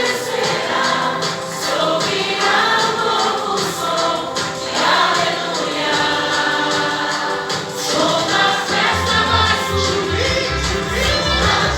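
Gospel song sung by a choir of voices over band accompaniment; a heavy bass line comes in about nine seconds in.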